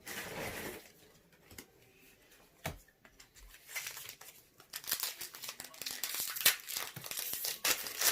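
Foil booster-pack wrapper being handled and torn open by hand, crinkling and crackling. The crackle becomes dense and continuous from about halfway through.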